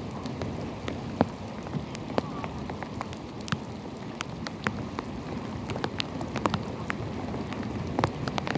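Rain falling on the water of a natural rock pool: a steady hiss of drops on the surface, dotted with many sharp, separate drop ticks.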